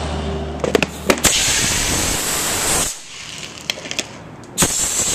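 Homemade pneumatic airsoft gun, a pressurized 2-liter bottle dumping air through a brake-line barrel, firing plastic BBs in full auto: a loud rush of compressed air from about a second in that cuts off after a second and a half, then a second burst near the end, with a few sharp clicks before each.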